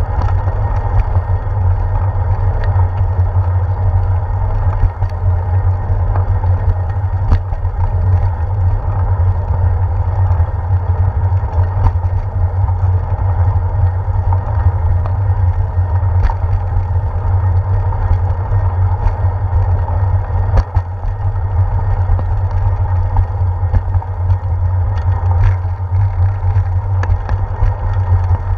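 Steady low rumble of wind and road vibration picked up by a handlebar-mounted GoPro Hero 4 as a bicycle rolls along a concrete bridge path, with a few faint ticks and knocks scattered through it.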